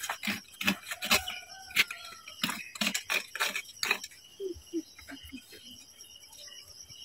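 Scattered sharp clicks and taps of small objects being handled on a concrete tomb slab. About halfway through come a few short, low cluck-like calls.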